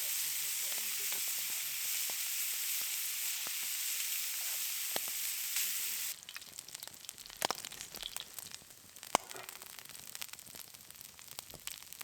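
Steak frying in a carbon steel pan over a campfire, sizzling steadily. About halfway through the sizzle cuts off abruptly, giving way to quieter crackling with scattered sharp pops.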